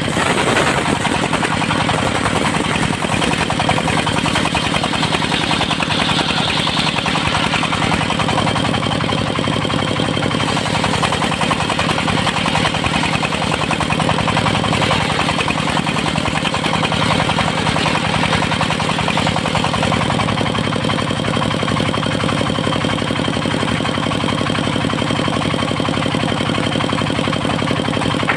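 Engine-driven mobile circular sawmill running steadily and loudly, with no change in pace.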